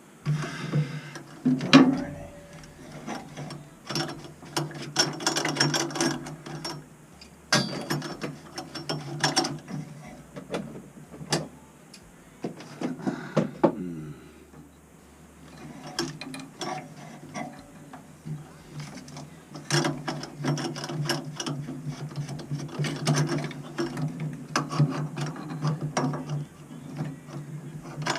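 Irregular clicking, rattling and knocking of metal parts and hand tools as a circulator pump is worked loose inside a combi boiler. The clicks come in clusters with short quieter gaps.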